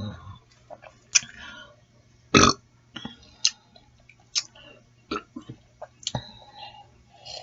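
A low, falling burp trailing off just at the start, then scattered sharp clicks and short smacks of someone eating chicken noodle soup.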